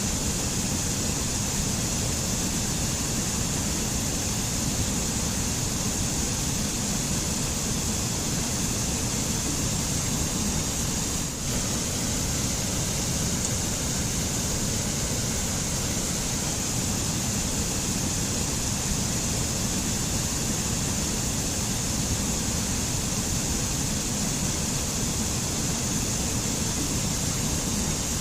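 Mountain white water rushing over rocks: a steady, unbroken rush of water with a high hiss and a low rumble.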